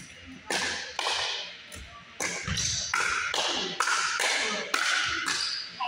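Pickleball paddles hitting a hard plastic ball in a fast rally, about ten sharp pops in quick succession, echoing in a gym.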